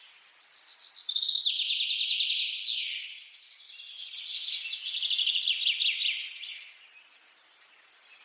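A bird singing: two long runs of rapid, high, repeated chirping notes, the first starting about half a second in and the second following after a short pause.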